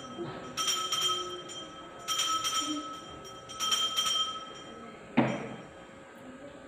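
Altar bell rung in three short bursts about a second and a half apart, marking the elevation of the chalice at the consecration. A single louder knock follows near the end.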